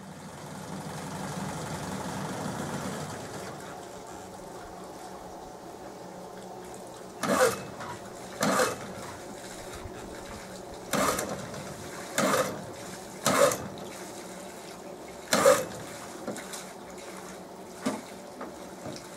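Pull-start cord of an early-1960s Johnson 5 hp outboard yanked about six times, each a short pull a second or two apart, without the engine catching, over a steady hiss of running water.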